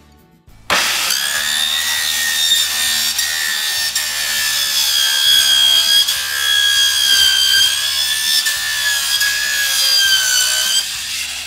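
Handheld circular saw cutting through a black plastic honeycomb deck grate. It starts abruptly about a second in and runs continuously, a steady high blade whine that sags slightly in pitch now and then as the blade bites.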